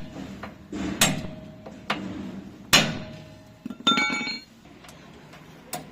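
Hammer blows on a steel punch, driving a pin out of a combine harvester's rear steering axle. A few separate sharp metal strikes come a second or more apart, and one about four seconds in leaves a short ringing clink.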